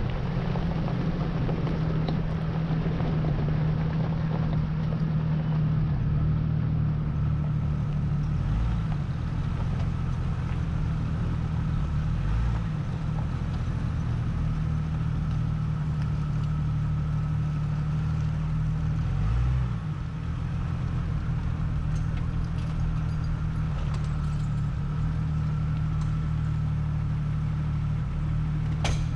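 Jeep engine running steadily, its note shifting briefly a few times, with a sharp click near the end.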